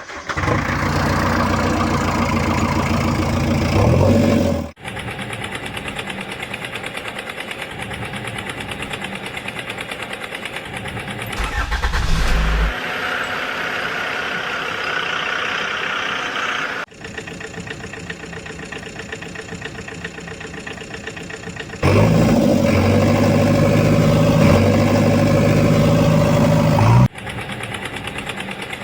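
Vehicle engines running steadily, in several clips joined by abrupt cuts, with the loudest, deepest engine sound in the first few seconds and again from about 22 to 27 seconds.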